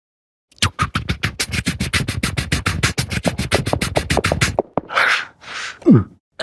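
A man making sound effects with his mouth: a rapid, even string of sharp pops, about eight a second, for about four seconds. Then come two short breathy hisses and a quick falling vocal swoop near the end.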